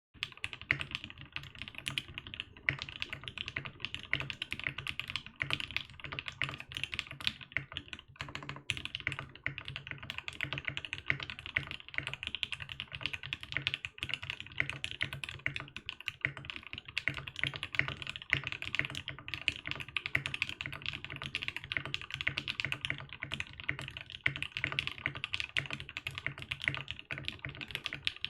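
Continuous fast typing on a 60% mechanical keyboard with a polycarbonate case and plate and Tangies linear switches: a steady run of keystrokes, with a brief pause about eight seconds in.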